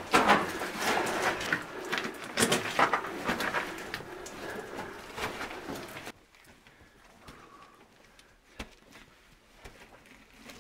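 A caver crawls through a narrow rocky passage: clothing and hands scrape and rustle over rock and gravel, with scattered knocks, for about six seconds. Then the sound drops suddenly to much quieter, with only faint rustles and ticks.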